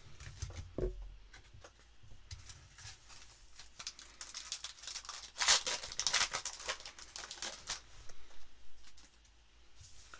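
Foil wrapper of a Donruss basketball card pack being torn open and crinkled by hand. The crinkling is loudest about halfway through and dies away as the cards come out.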